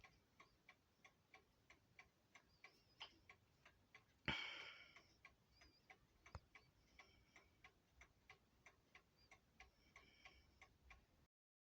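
Seth Thomas mantel clock ticking faintly and evenly, about two to three ticks a second. A single sharp knock with a short ring-out comes about four seconds in, and a lighter click follows about two seconds later. The sound cuts off just before the end.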